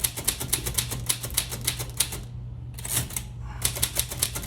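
A 1940s Royal manual typewriter being typed on: quick runs of sharp keystrokes as the typebars strike, broken by two short pauses.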